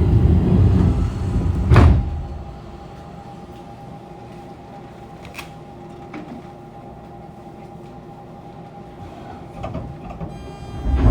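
Subway car's sliding doors closing, rumbling and shutting with a thud about two seconds in, then the stopped car's steady hum. Near the end a clunk, the line breaker closing, and the start of the Hitachi GTO-VVVF inverter's whine as the train pulls away.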